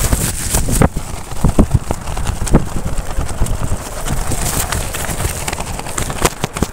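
Strong wind buffeting a tent: the fabric flaps and snaps in irregular sharp cracks over a constant low rumble of wind on the microphone.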